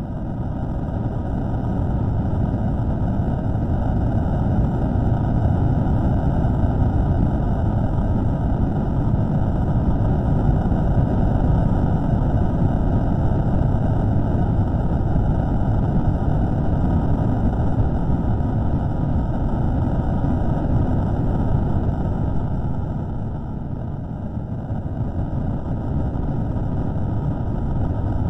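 A steady low rumbling drone with no clear pitch, from a microphone recording slowed to about a third of its speed. It dips in level briefly about 23 seconds in.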